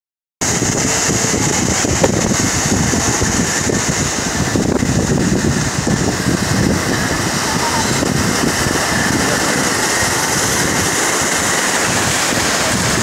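Sea waves washing and churning over shoreline rocks: a loud, steady rush of surf.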